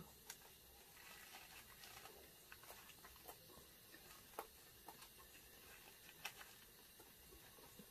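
Faint eating sounds in a quiet room: two people chewing egg rolls, with scattered soft clicks and crackles from mouths and paper wrappers. The sharpest clicks come about four and a half and six seconds in.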